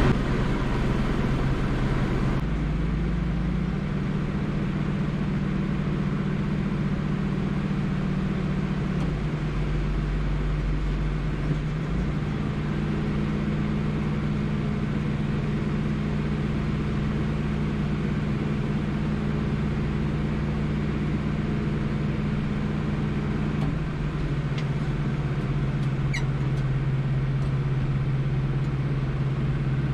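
New Holland TD75 tractor's diesel engine running steadily, heard from inside the cab while it drives the hydraulics that tip the grain trailer. Its note shifts a few times: about two seconds in, near the middle and again near the end.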